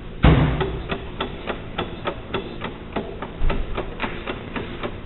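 Hand-tool work: one heavy knock about a quarter of a second in, then a steady run of light, sharp clicks at about three a second.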